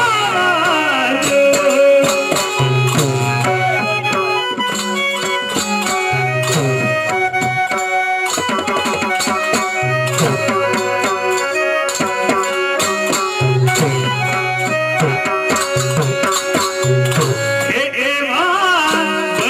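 Gujarati devotional raas music during an instrumental interlude: a harmonium melody in steady, stepped notes over a brisk hand-drum rhythm. The male singer's voice comes back near the end.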